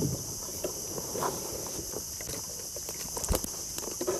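Steady high-pitched drone of insects (cicadas or crickets) in the riverside trees, with scattered small knocks from handling gear in a small boat and one sharper knock about three seconds in.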